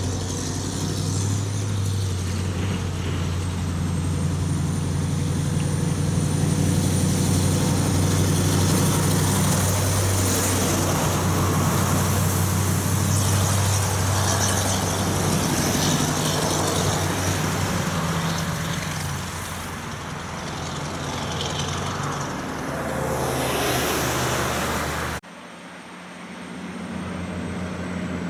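Heavy diesel truck engine running close by as the truck passes, with tyre and road noise; the engine sound eases as it moves off and a car goes by. About 25 s in the sound cuts abruptly, and another heavy truck's engine is heard more faintly, with a regular pulse, as it approaches.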